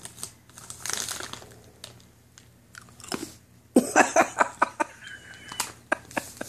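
A large dog biting and crunching a hard treat, with a quick run of sharp crunches starting about four seconds in.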